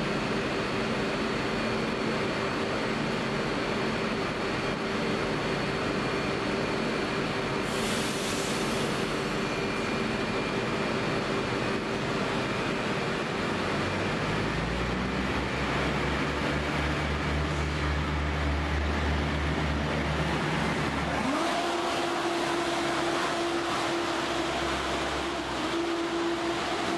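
Diesel multiple unit idling at the platform, with a short hiss of air about eight seconds in. About halfway through its engines rev up and it pulls away, and a rising whine sets in as it gathers speed past the platform.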